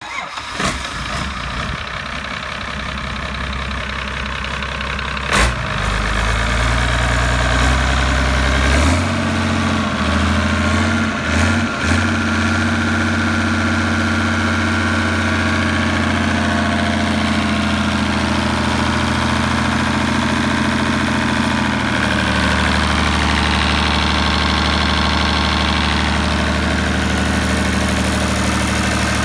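Yanmar 6LY2A-STP six-cylinder turbocharged marine diesel engine running on a test stand. It is quieter and pulsing at first. A sharp knock comes about five seconds in, and the engine then runs louder and deeper, with its speed shifting a few times.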